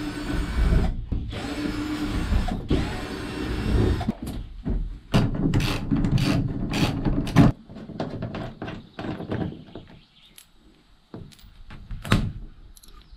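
Power drill running in three short bursts, then a string of knocks and clatter that thins out, in the course of taking out a van's inner wall panels.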